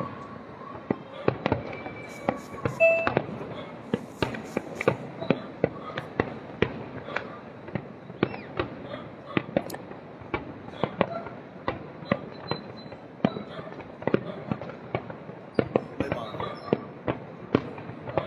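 Fireworks display: aerial shells bursting in a continuous, irregular barrage of sharp bangs, roughly two or three a second, with the loudest about three seconds in.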